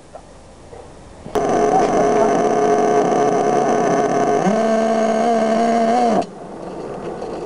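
Small engine of an RC monster truck running loud and steady for about five seconds, its pitch rising a little near the end, then cutting out suddenly: a stall that is put down to the engine not being warmed up before driving.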